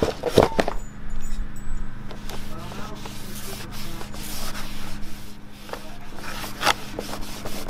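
A cloth shop towel rubbing and wiping across the face of a new StopTech drilled and slotted brake rotor, cleaning the braking surface with lacquer thinner before it is fitted. A few knocks come through, the sharpest about half a second in and near the end, over a steady low hum.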